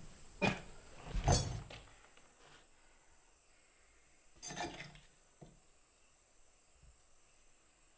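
A few short, soft knocks and rustles as hands are laid on a carved stone slab: a small one about half a second in, the loudest about a second later, and another about four and a half seconds in.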